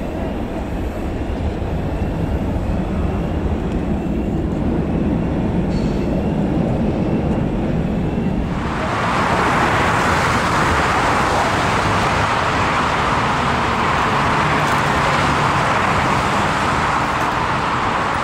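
Jet noise from an Airbus A330-300's Rolls-Royce Trent 772B engines as it climbs away: a low rumble with faint falling tones above it. About eight and a half seconds in, the sound cuts abruptly to a louder, steady rushing hiss of ground noise around a Boeing 777 under tow behind a tug.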